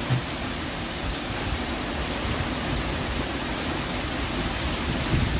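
Heavy rain pouring down steadily in a strong wind, with gusts blowing it through a porch screen.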